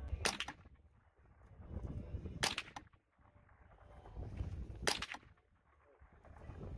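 Three rifle shots fired one at a time, about two and a half seconds apart, each a short sharp crack.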